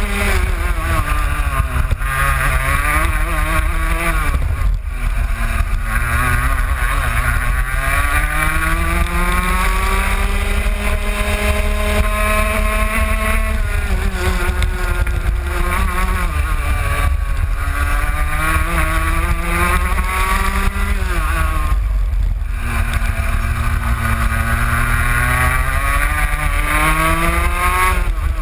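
Racing kart engine at full race pace, heard from on board. Its pitch climbs steadily along the straights and drops sharply when the driver lifts and brakes for corners, most clearly about five seconds in and again about twenty-two seconds in, then climbs again on the throttle.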